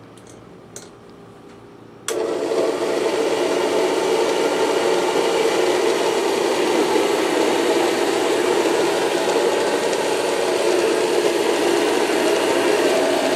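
A vacuum cleaner switched on about two seconds in, its motor then running steadily at full speed.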